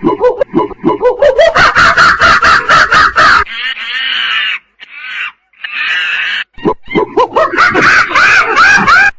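Monkey calling: two loud bouts of rapid, repeated calls, each note rising in pitch, with softer calls between them.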